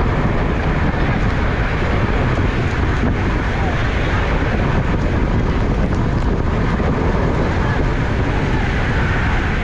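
Steady wind rushing over the microphone while moving at speed, with vehicle and road noise underneath.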